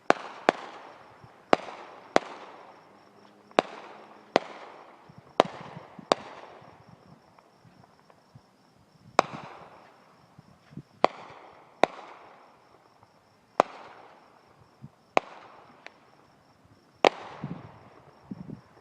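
Fireworks exploding: about a dozen sharp bangs at irregular intervals, a few smaller pops among them, each bang trailing off in an echo.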